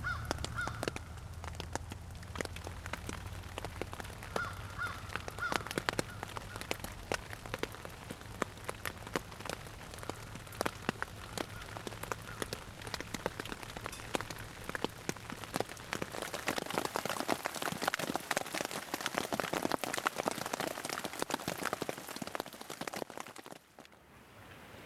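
Rain falling on a tent's rainfly: a steady spatter of individual drops tapping the fabric, thickening into a denser hiss about two thirds of the way through.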